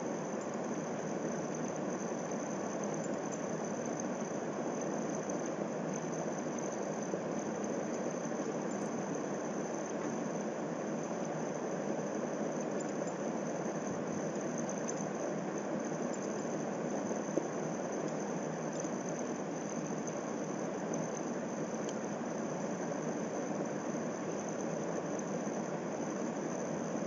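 Steady room background noise: an even low hum and hiss with a thin, constant high-pitched whine, unchanging throughout.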